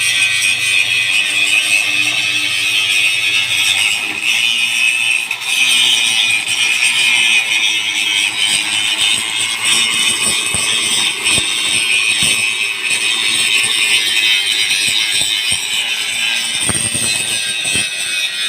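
Angle grinder grinding metal: a steady, loud, high-pitched grinding noise.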